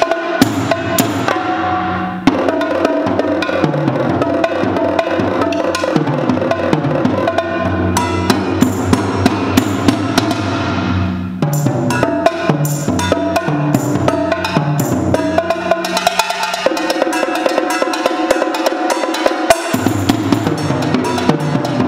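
Solo multi-percussion playing on a set of drums of several pitches, struck with sticks in fast, dense rhythmic patterns. About eleven seconds in the texture changes, and for a few seconds the deeper drums drop out before returning near the end.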